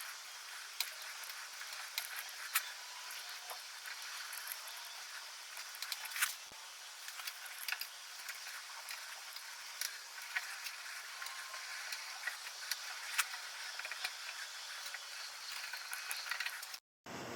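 Hand-tool work on a steel rifle bolt handle: a steady scraping hiss with scattered small metal clicks and ticks. It cuts off abruptly near the end.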